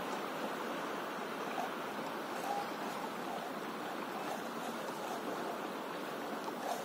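Small waves lapping against an inflatable paddleboard on calm sea: a steady, even rippling.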